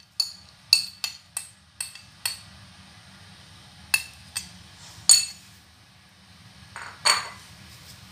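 Metal spoon clinking and scraping against ceramic dishes as fried cashew pieces are pushed off a plate into a bowl. There are sharp clinks, about six in the first two and a half seconds and three more around four to five seconds in, then a longer scrape about seven seconds in.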